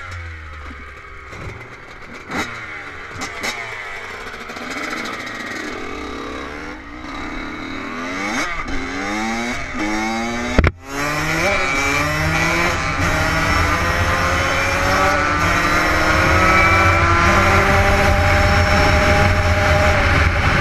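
Two-stroke dirt bike engines revving up and down. About ten seconds in, after a cut, a dirt bike is riding on pavement, its engine pitch climbing as it accelerates, with wind rumbling on the microphone.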